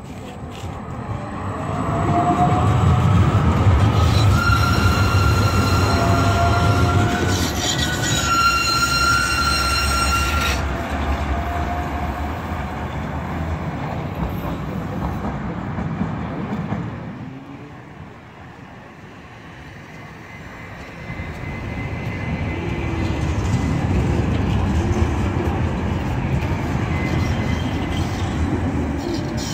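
Articulated electric trams running on rails: a first tram rumbles past with a steady high whine from about four to ten seconds in, fades away, and a second tram grows louder as it rounds a curve close by near the end.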